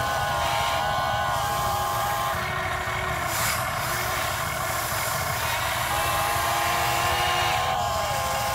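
Huina 580 RC excavator's electric motors whining as the boom and arm swing out and lift: steady whines that stop in the middle and start again, several short lower whines, and a whine that falls in pitch near the end. A brief hiss comes about three and a half seconds in.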